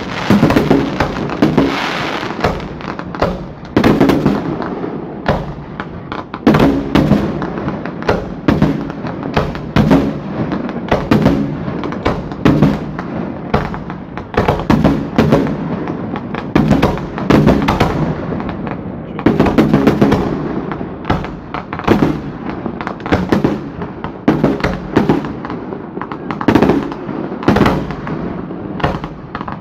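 Fireworks display: aerial shells bursting and crackling in rapid, continual succession, several sharp bangs a second over a steady rumble of smaller reports.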